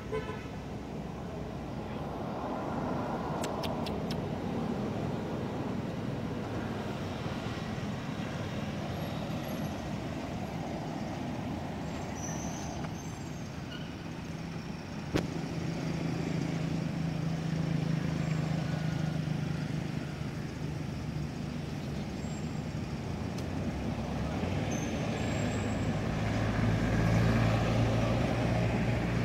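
Road traffic: motor vehicles passing with a steady engine rumble that swells about halfway through and again near the end. A single sharp click comes about halfway through.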